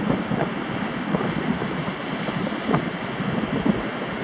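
Rough sea surf breaking and washing against a rock breakwater, with wind buffeting the microphone.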